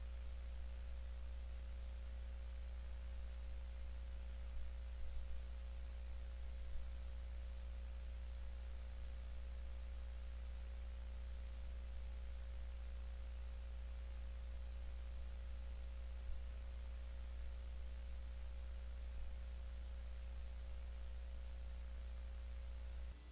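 Steady low electrical hum with a fainter steady tone above it over a light hiss, unchanging throughout; no sound from the unpowered sailplane stands out.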